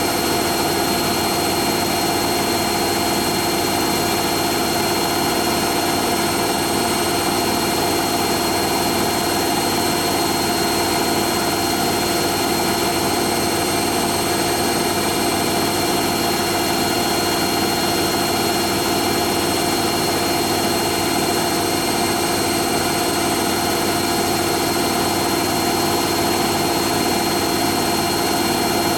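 Hoover Nextra HNL71463D washing machine in its final spin, the drum turning at high speed with a steady motor whine and hum and no change in speed.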